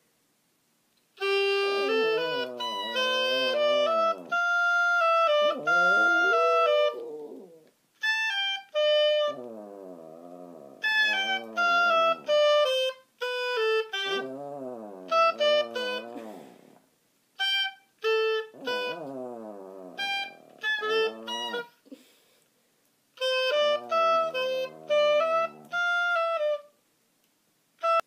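Oboe played in short, halting phrases of held and moving notes with brief gaps between them, a practising player who calls her own playing bad.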